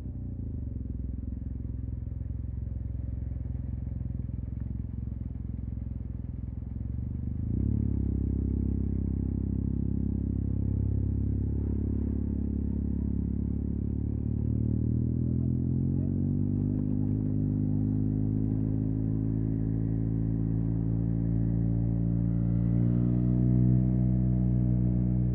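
Yamaha TMAX 560's parallel-twin engine breathing through an Akrapovic carbon full-system exhaust, running low and steady at first. It gets louder about seven seconds in, then the revs climb over a couple of seconds in the middle and hold higher to the end.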